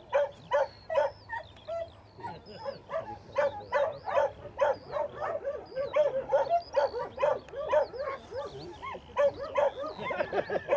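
A dog yelping and barking in a rapid series, about two to three short high yelps a second with brief pauses.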